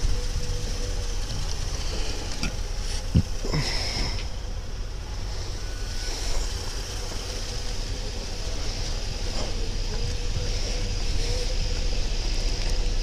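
Steady low rumble of vehicles, with a faint steady high whine over it and a few light knocks, the sharpest about three seconds in.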